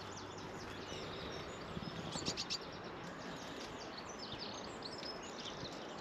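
Small birds chirping and singing, many short high calls scattered over a steady outdoor background hiss. A few sharp clicks come together about two seconds in.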